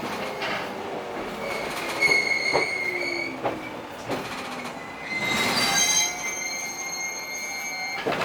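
Ex-JNR 103 series electric train heard from inside at the gangway between cars: a high-pitched wheel and brake squeal sounds twice, a shorter one about two seconds in and a longer one from about five seconds on, as the train slows. Knocks and rattles from the gangway footplates and running gear come between the squeals, with a sharp clack near the end.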